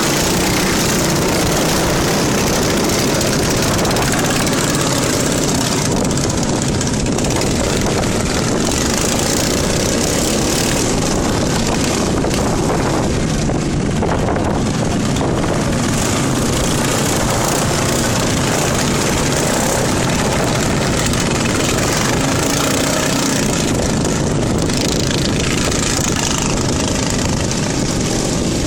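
Lawn mower engine running steadily and loudly, without letting up.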